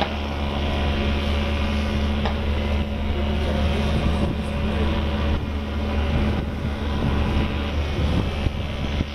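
Steady low engine drone, with wind on the microphone.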